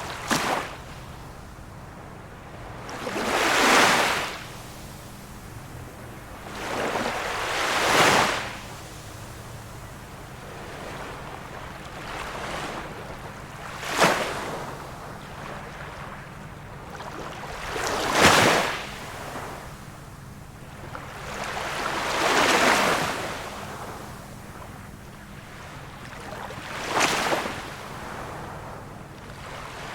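Small waves on a calm sea washing in one after another, about every four seconds. Some swell and fade gently, a few break with a sharper splash.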